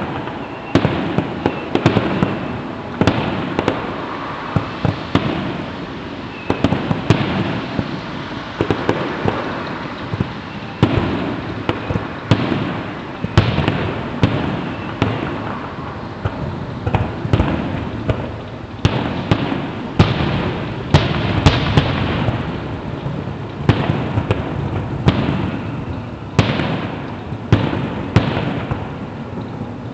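Fireworks display at its climax, heard from a distance: a dense, unbroken barrage of shell bursts and crackling reports with rumbling in between.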